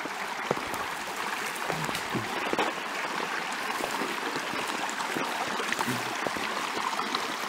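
A small creek running over rocks: a steady rushing of water, with a few faint knocks scattered through it.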